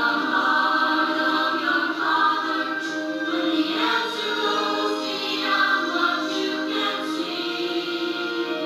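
A church choir of mixed voices singing together in long, held notes.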